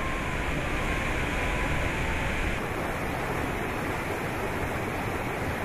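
Waterfall in heavy flow crashing into a pool, a steady rushing roar of churning whitewater, a little duller in tone after about two and a half seconds.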